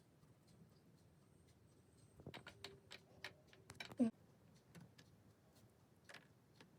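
Faint clicking and rattling of LEGO pieces being handled and pressed together, a quick cluster of small clicks starting about two seconds in. A brief vocal sound about four seconds in is the loudest moment.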